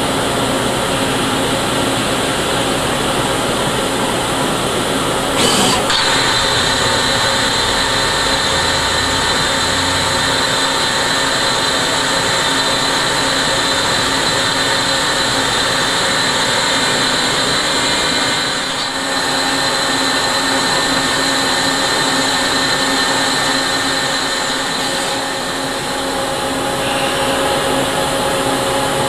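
Citizen A20 VII Swiss-type CNC lathe running with its high-speed spindle at 25,000 rpm, micro-drilling a small part with a .02-inch drill: a steady machine noise with a high whine over a lower hum. A short sharp sound breaks in about five seconds in.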